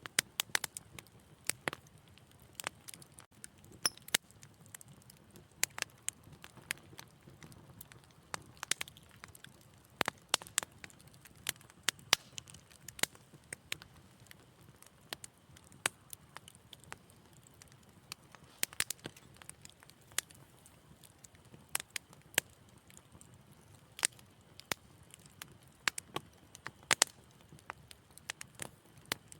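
Wood fire crackling in a fireplace: irregular sharp pops and snaps, several a second at times, over a faint low rumble of the flames.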